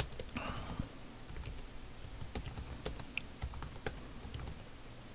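Typing on a computer keyboard: scattered, irregular keystrokes as short shell commands are entered.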